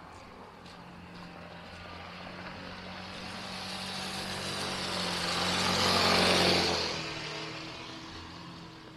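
A road vehicle passing close by: engine hum and tyre noise rise for several seconds, peak about six seconds in, then fade quickly.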